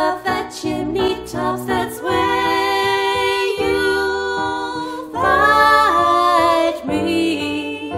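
Two women singing a song together, with long held notes.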